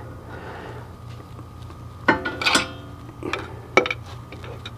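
Metal clinking as a front brake caliper is lifted off its carrier and handled: a few sharp, ringing clinks, two about two seconds in and two more near four seconds.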